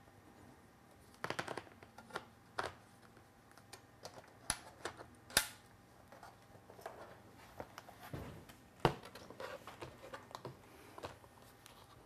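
Scattered light clicks and taps from handling an aluminium unibody MacBook Pro as the battery is put back into its bay and the laptop is turned over and opened. The sharpest click comes about five seconds in, and another about nine seconds in.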